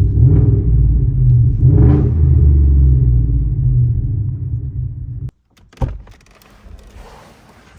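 Ford F-150 pickup's engine running with a loud, deep rumble, swelling twice, then shut off suddenly a little past five seconds in; a single thump follows, like a door shutting.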